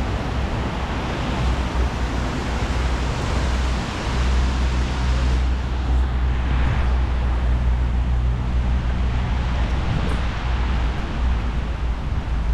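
Wind rushing over the microphone of a camera on a moving bicycle: a steady, loud rush over a deep rumble.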